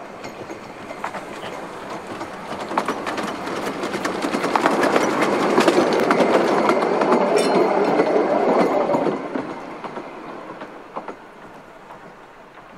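Narrow-gauge steam train of open passenger carriages passing close by, wheels clicking over the rail joints. It grows louder, is loudest in the middle, and fades away near the end.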